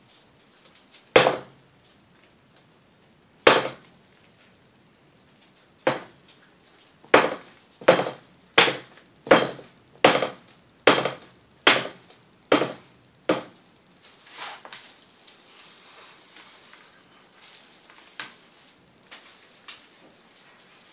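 A series of about a dozen sharp knocks. A few come spaced out first, then a steady run of about one every three-quarters of a second that stops about thirteen seconds in, followed by a faint rustle.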